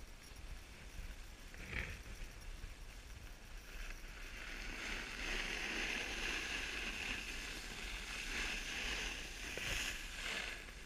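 Snowboard sliding over groomed snow: a hiss that swells about four seconds in and fades near the end, with a brief scrape just before two seconds.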